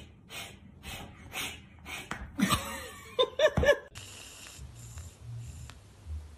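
A person laughing hard: wheezy breaths about twice a second, then louder voiced laughs that stop suddenly near the middle. A faint low hum follows.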